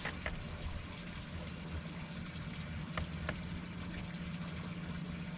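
A fishing boat sits on the water with a steady low hum and light water noise. Two pairs of short sharp ticks come at the start and about three seconds in.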